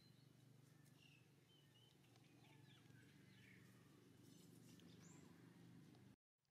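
Near silence: faint background hum with a few short, distant bird chirps. The sound drops out completely for a moment near the end.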